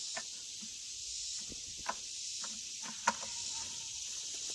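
Steady high drone of insects in the woods, with a few light clicks and taps from hands working in an engine bay, the sharpest about two and three seconds in.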